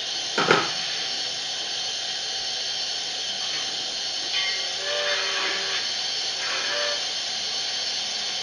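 Sound system of an Sn3 model steam locomotive hissing steadily as the engine stands with its log cars, with one sharp sound about half a second in and two brief pitched tones around the middle.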